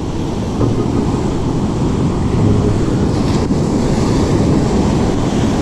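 Ocean surf breaking on the beach, with wind buffeting the microphone in a steady low rumble.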